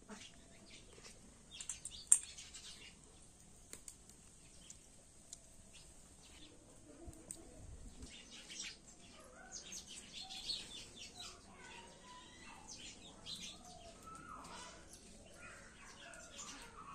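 Small clicks and cracks of snail shells being broken open by hand against a blade, with one sharp knock about two seconds in; birds chirp in the background.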